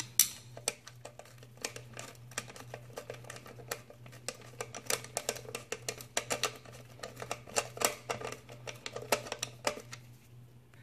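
Screwdriver tightening the screws of the power cord's metal clamp on a Badger garbage disposal's bottom plate: a run of small irregular clicks and ticks, over a low steady hum.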